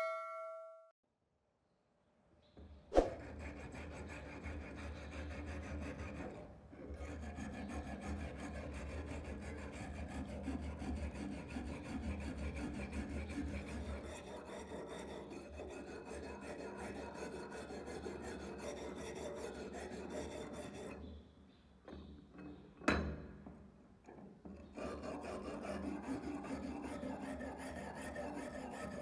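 Hand wire brush scrubbing rust off the blade of an old butcher's cleaver, a continuous scratchy back-and-forth rasping with a short break and a longer lull about two thirds of the way through. A knock sounds about three seconds in and another during the lull, and a chime fades out in the first second.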